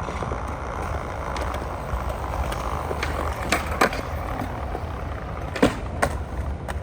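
Skateboard wheels rolling on concrete, with four sharp clacks of the board striking the ground from about halfway in.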